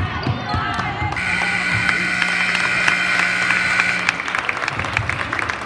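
Gym scoreboard buzzer sounding one steady buzz about three seconds long as the game clock runs out to zero, followed by clapping.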